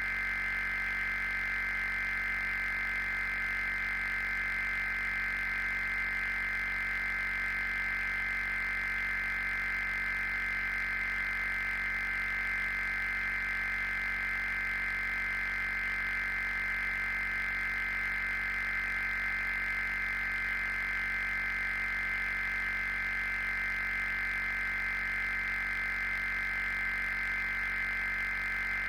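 A steady high electronic tone, several close pitches held without any change or break, over a faint low hum, on the audio of an emergency alert broadcast.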